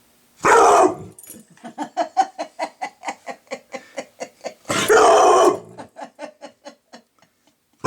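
Two loud harsh bursts about four seconds apart, taken for the noise of a battery-powered owl figure, with a person laughing in a long run of quick pulses, about four a second, between and after them that fades away near the end.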